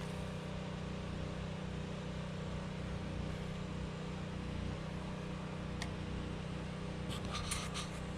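Steady low mechanical hum, like a motor running, with a few sharp clicks near the end.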